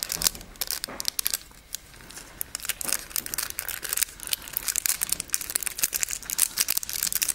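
Thin nail transfer foil crinkling as fingers handle it and press it onto a fingernail: dense, irregular crackles that get busier from about three seconds in.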